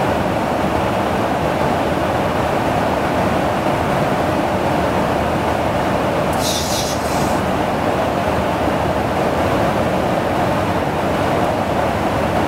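Steady loud rush and rumble of a KC-135R Stratotanker in flight, heard inside the boom operator's pod, with a brief high hiss about halfway through.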